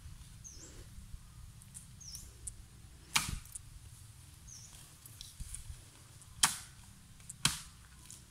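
Three sharp chopping strikes of a blade biting into bamboo, the first about three seconds in and two more close together near the end, with a few faint short high chirps between them.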